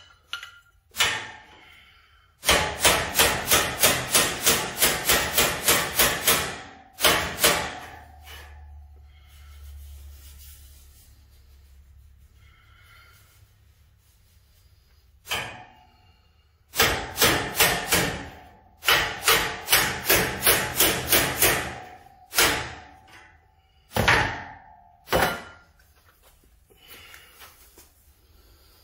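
Ball-peen hammer tapping dents out of a thin sheet-metal car grille: two long runs of quick blows, about three or four a second, and a few single blows between them. Each strike gives a sharp metallic ring.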